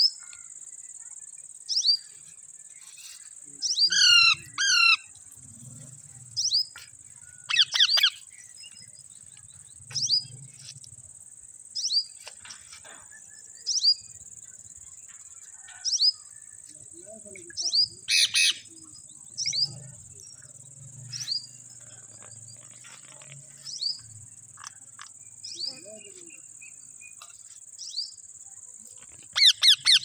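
Alexandrine parakeets calling: short, sharp chirps that slide downward, repeated every second or two. A few calls come as quick runs of several notes, and a fast string of calls comes near the end.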